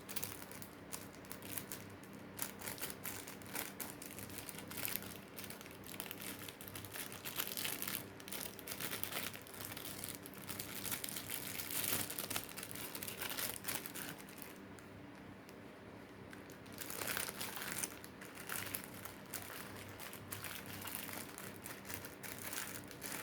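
Packaging crinkling and rustling as parcels are unwrapped by hand, going on irregularly: busiest in the middle, dropping off briefly about two-thirds of the way in, then picking up again.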